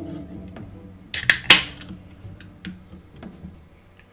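A can of sparkling yerba mate being opened: a click of the pull tab, then a sharp crack and a short hiss of escaping carbonation about a second and a half in, followed by a few faint clicks.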